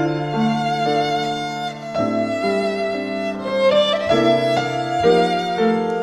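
Violin playing a melody with vibrato over held accompanying chords in an instrumental arrangement.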